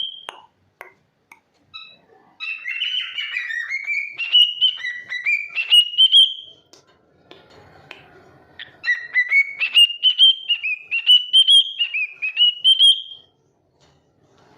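Cockatiel whistling: a few short chirps, then two long warbling whistled phrases that climb in pitch in steps, each lasting several seconds.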